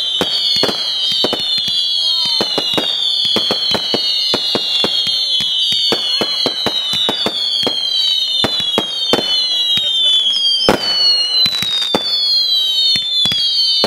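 Wild Horses 100-shot firework barrage cake firing continuously: a rapid run of pops and cracks, about three a second, with overlapping high whistles that fall in pitch.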